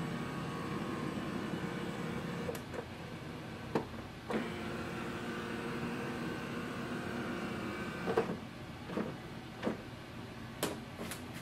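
HP DeskJet 4252e all-in-one printer's scanner motor running with a steady hum at the end of a scan job, changing pitch about four seconds in and stopping at about eight seconds. Clicks and knocks are scattered throughout, with several more after the motor stops as the mechanism parks.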